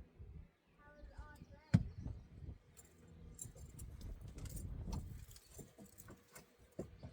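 Metal hand tools and engine parts clinking and rattling, with one sharp metal clank just under two seconds in.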